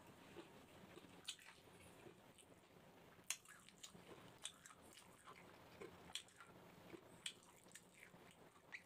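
Faint close-up chewing with scattered sharp wet mouth clicks and lip smacks, from a person eating rice and barbecued chicken gizzards by hand.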